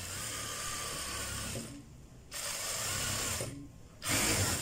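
Jack F4 industrial straight-stitch sewing machine, driven by its built-in servo motor, stitching at high speed in three short runs that start and stop abruptly with brief pauses between. The last run is the loudest.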